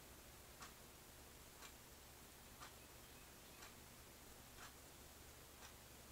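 A clock ticking faintly and evenly, one tick each second, over quiet room hiss.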